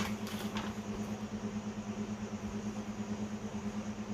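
A steady low mechanical hum with a faint click about half a second in.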